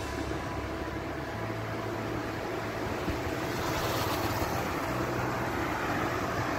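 Steady rush of wind and road noise from riding along a city road, growing a little louder about halfway through.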